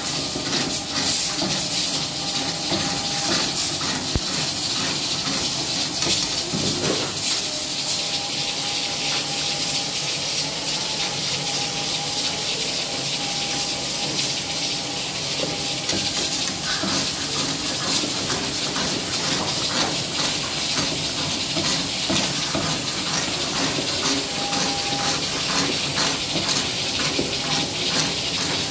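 Chicken karahi sizzling in a large steel karahi over a high gas flame, a steady hiss, with a long metal ladle scraping and clinking against the pan as it is stirred.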